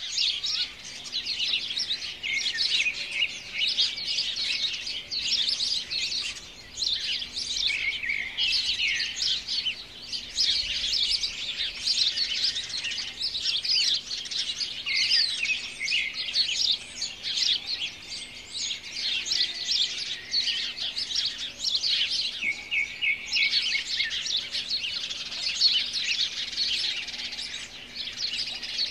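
Many birds chirping and singing at once in a dense, unbroken chorus of quick high chirps and trills.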